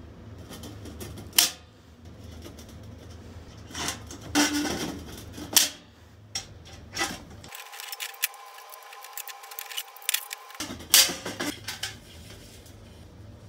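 A hand pop-rivet tool setting rivets through a thin steel paint can gives several sharp snaps as the mandrels break, among smaller clicks and tinny clanks of the can being handled.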